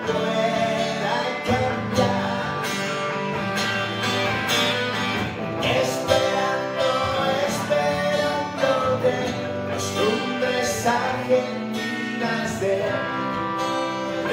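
Live acoustic-electric duo: an acoustic guitar strummed together with an electric guitar through a small amplifier, with a man singing into a microphone.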